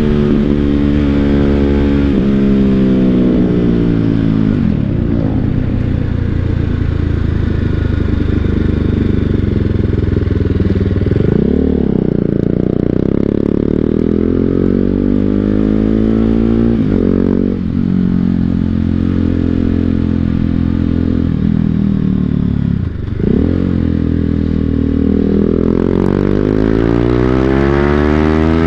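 BMW G 310 GS single-cylinder engine running through an Akrapovic full-system exhaust while riding, its pitch repeatedly rising and falling as the rider accelerates and eases off, with sharp pitch changes around twelve, seventeen and twenty-three seconds in.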